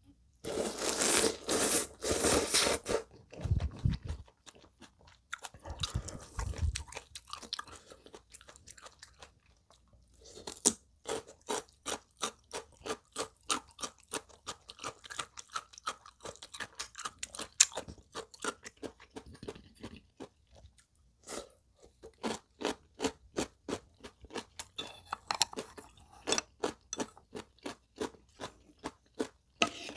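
A mouthful of instant ramen noodles slurped in loudly for about three seconds at the start, then close-up chewing of noodles and kimchi with the mouth full: a steady run of short wet clicks, about three a second, from about ten seconds in.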